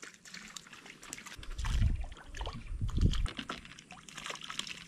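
Light trickling and splashing of water at the edge of a swamp pond, with small crackles and two muffled low thumps, about two and three seconds in.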